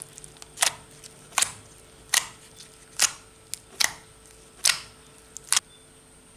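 A series of seven sharp clicks or pops, about one every 0.8 seconds, over a faint steady hum.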